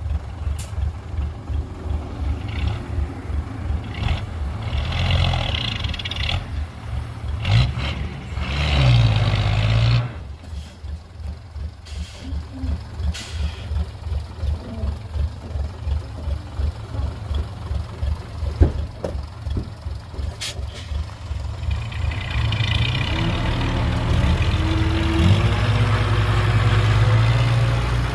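Heavy diesel engine of earthmoving machinery running with a rhythmic chugging pulse. It works harder for several seconds, drops back suddenly, then climbs again over the last few seconds. A few brief clicks come through.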